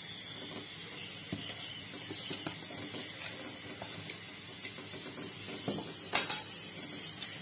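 Quiet kitchen handling sounds around an aluminium kadai of oil on a lit gas burner: a faint steady hiss, a few light clicks, and a sharper clatter about six seconds in.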